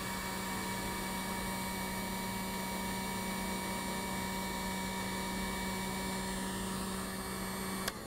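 Electric heat gun running with a steady blower hum while it shrinks the tubing of a heat-shrink butt connector onto a wire. It stops with a click near the end.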